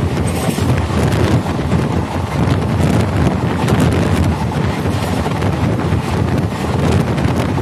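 Passenger express train running at speed: a steady rumble of coach wheels on the track, mixed with wind buffeting the microphone held outside the coach.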